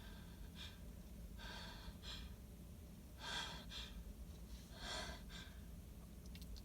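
A woman's short gasping in-breaths, half a dozen or so, the strongest about three seconds in and another about five seconds in: the hitching breaths of a sneeze building up but not coming.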